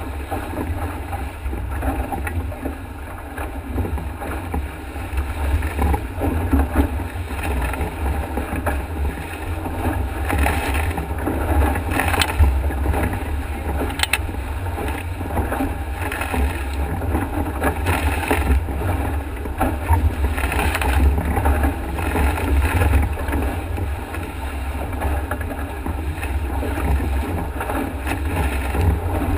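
Strong wind buffeting the microphone, with water rushing along the hull of a Nacra 5.8na catamaran sailing fast under spinnaker. A steady low rumble runs throughout, and a few sharper hits come around the middle.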